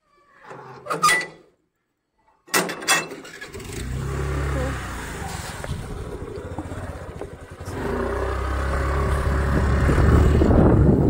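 A motor vehicle running on the move, a steady low rumble with road and wind noise that grows louder about eight seconds in. It is preceded by a few sharp clicks.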